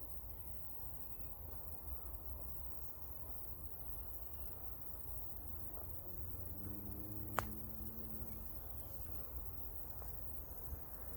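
Quiet outdoor countryside ambience with a steady low rumble and a high steady hiss. A few faint, short falling bird calls come through, a low hum passes in the middle, and there is a single sharp click about seven seconds in.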